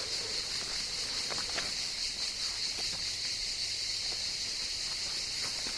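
Faint, irregular footsteps walking outdoors, over a steady high-pitched hiss like an insect chorus.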